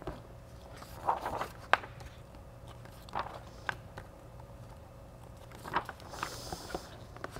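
Soft handling noises of a paperback picture book: a few light taps and clicks and short paper rustles, with a brief rustle of pages about six seconds in.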